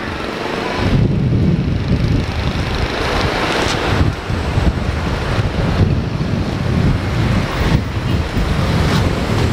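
Wind buffeting the microphone in uneven gusts, over the noise of road traffic passing by.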